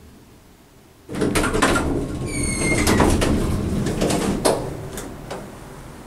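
Elevator doors of a National hydraulic elevator sliding open with a rumble and clatter, starting about a second in. Shortly after they start moving, the arrival bell rings once with a short bright ding, a bicycle-bell-like bell.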